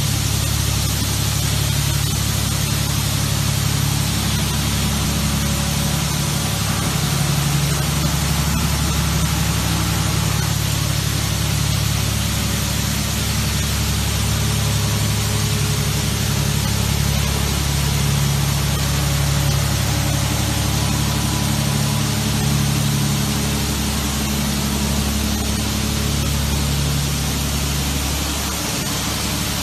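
Steady hiss of many water spray nozzles drenching a bus in a rain-test booth, the water-tightness check on a bus assembly line, over a steady low mechanical hum.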